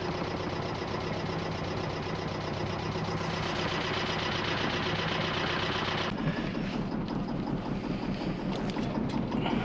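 Motor of a small wooden sailboat running steadily under way. About six seconds in the sound changes abruptly, becoming lower and rougher.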